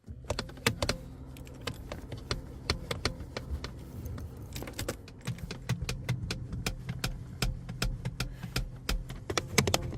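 BMW E46 being cranked on the starter, the engine struggling and not catching, as a steady low hum. Many sharp metallic clicks and rattles sound over it throughout.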